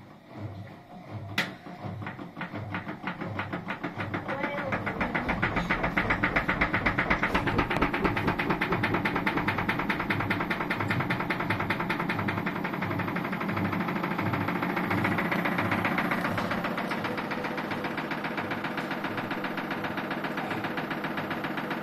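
Electrolux 9 kg front-loading washing machine winding up into its spin. A slow, rhythmic thumping speeds up over the first several seconds into a rapid, steady knocking and rumble. The machine is faulty enough that a repairman has been called.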